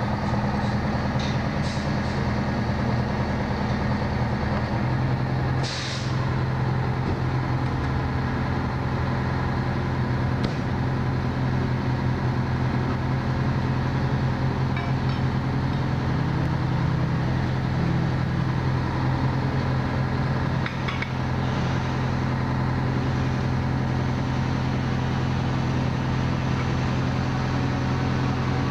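Fire engine's engine idling steadily beside the hydrant, a constant low hum, with a brief hiss about six seconds in.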